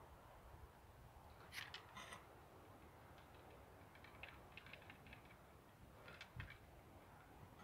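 Near silence: a faint steady background with a few soft clicks, a cluster about one and a half to two seconds in, a run of small ticks around four to five seconds, and another just past six seconds.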